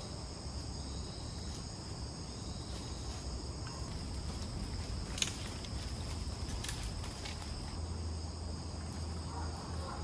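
Steady high-pitched chorus of rainforest insects, several tones held together without a break. A few brief sharp clicks stand out about five to seven seconds in.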